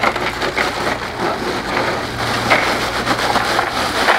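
Ice cubes pouring from a bag into a plastic cooler onto fish: a dense, steady rattle and crunch of many small clicks.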